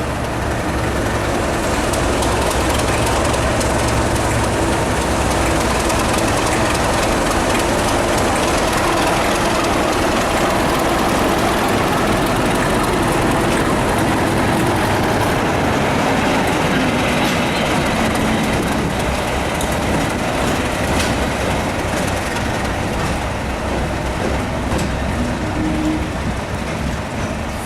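Class 37 diesel locomotive's English Electric V12 engine working as it pulls a train away, with the noise of the train's wheels on the rails. The low engine note is strongest in the first half and fades after about halfway through.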